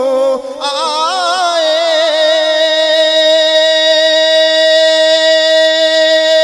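Solo male voice reciting a naat through a microphone, drawing out the last sung word in a winding, ornamented run, then holding one long steady note from about two seconds in.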